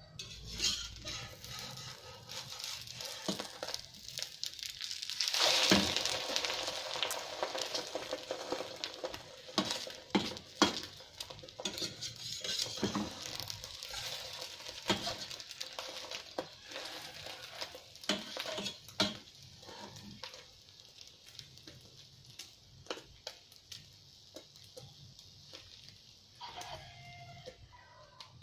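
Egg omelette sizzling in a stainless steel frying pan, with a metal spatula scraping and clicking against the pan as it is lifted and folded. The sizzle rises sharply about five seconds in, then dies down over the last several seconds.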